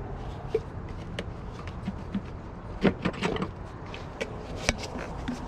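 Car heard from inside the cabin with the engine running: a steady low rumble, with scattered clicks and knocks, the loudest a cluster about three seconds in and a sharp click near the end.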